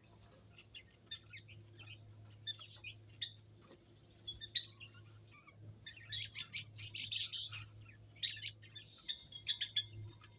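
Small aviary birds chirping, many short high calls in quick succession, busiest about six to eight seconds in. A low steady hum runs underneath.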